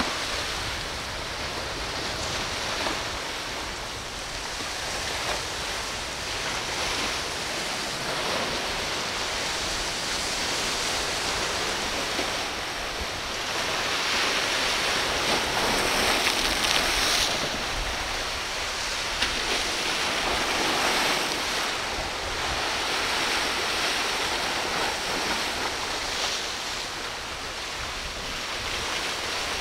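Ocean waves rushing and breaking, with wind on the microphone. The rush swells loudest a little past the middle, then eases off.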